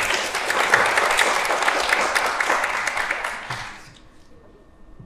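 A group of people applauding with many quick hand claps. The applause dies away about four seconds in.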